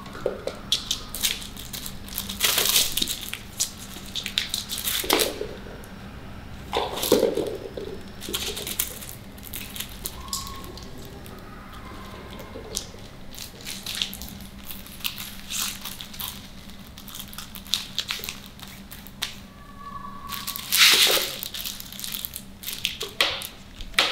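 Glossy plastic sticker sheets crinkling and rustling as kittens step on them and paw at them, in irregular bursts with the loudest cluster near the end.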